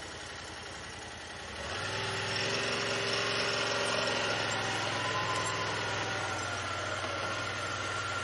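Yamaha Wolverine side-by-side's engine running quietly, then about two seconds in it gets louder and holds a steady pace as the machine drives along the trail, with a thin steady whine.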